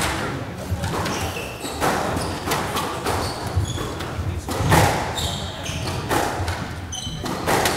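Squash rally: the ball struck by rackets and smacking off the court walls about every second, with short high squeaks of sneakers on the wooden court floor between the hits.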